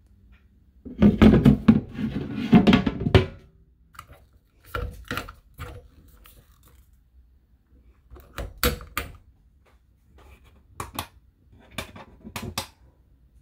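Handling noise from a travel trailer's kitchen sink cover and pull-down faucet: a dense clatter of knocks about a second in, then scattered single thunks and clicks every few seconds.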